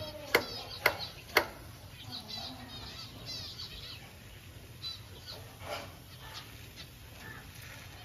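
Parrots calling: three loud, sharp squawks in the first second and a half, then quick runs of chattering chirps and a few scattered calls.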